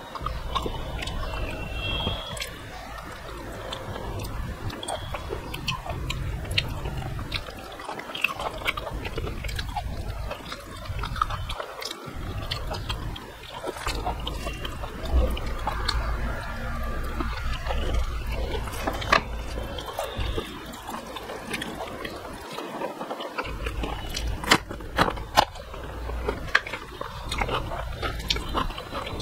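Close-up eating sounds: fingers mixing rice and a wet vegetable curry on a steel plate, and chewing with many small sharp mouth clicks and smacks.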